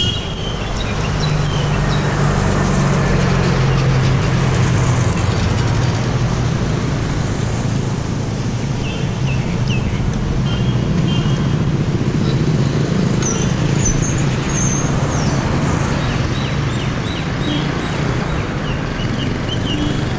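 Steady rush of wind on a bicycle-mounted action camera's microphone while riding, mixed with road traffic noise. A few short high chirps sound in the second half.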